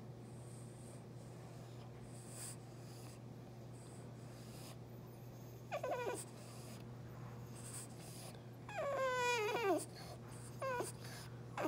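French Bulldog whining, fussing to be given food: a short whine about six seconds in, a longer one falling in pitch a few seconds later, then two more short whines near the end.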